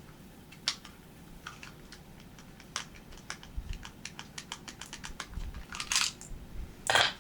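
Metal parts of a Ruger Mark II .22 pistol clicking and rattling as it is handled during reassembly: scattered light clicks, a quick run of ticks in the middle, then two louder scraping rattles near the end, the last the loudest.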